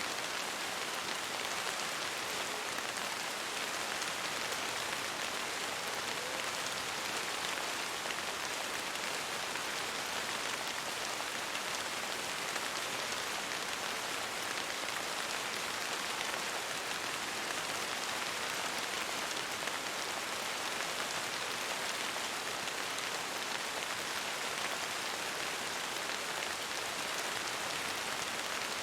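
Steady rain falling on a window pane: an even, unchanging hiss of many drops.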